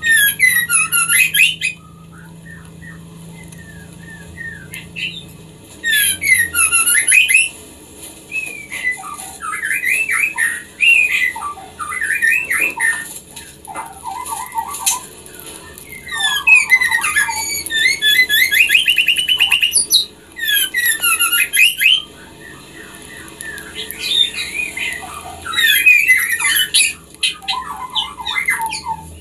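White-rumped shama (murai batu) calling in repeated bouts of quick, varied chattering and whistled notes, with short pauses between bouts. This is a recording of a female in breeding condition calling for a male, of the kind played to bring captive shamas into breeding.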